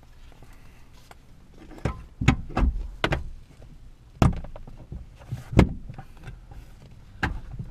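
Plastic sun visor knocking and clunking against the cab roof as it is worked into its ceiling mount: a string of irregular sharp knocks, the loudest about four and five and a half seconds in.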